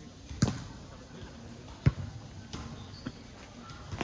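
A ball bouncing on a hard court floor: about five separate thuds at uneven spacing, the strongest about half a second in and near two seconds.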